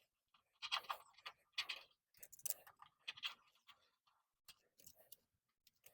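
Spline roller tool pressing rubber screen spline and mesh into the door frame's channel: faint, irregular crunching and clicking, busiest in the first half, then a few scattered ticks.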